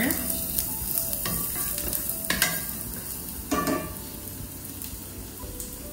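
Onions and garlic sautéing in olive oil in an enamelled pot: a steady sizzle, with a wooden spoon stirring and scraping the pot bottom in a few strokes about a second apart, easing off after the first few seconds.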